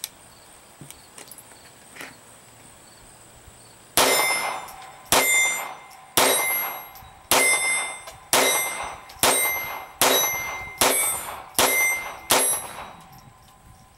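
Ten shots from a Hi-Standard Victor semi-automatic target pistol firing standard-velocity .22 LR, beginning about four seconds in and coming about one a second. Each sharp crack is followed by a metallic ring that dies away.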